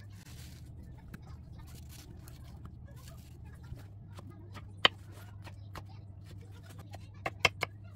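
Stainless steel kitchen knife knocking on a wooden cutting board while cutting and scoring a peeled mango: scattered light clicks, one sharp knock about five seconds in and three quick knocks near the end, over a steady low hum.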